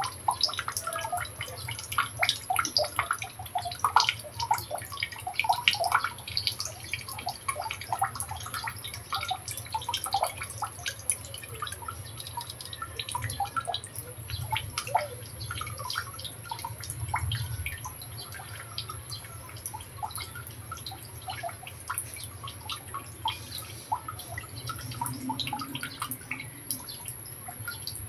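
Brown sugar and coconut milk syrup boiling in a wok, with dense, irregular bubbling pops over a low steady hum.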